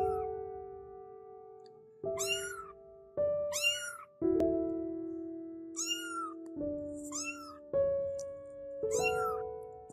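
Two-week-old kittens meowing: about six short, high calls, each rising then falling in pitch, spaced a second or so apart. Slow piano music plays under them, each chord ringing and fading.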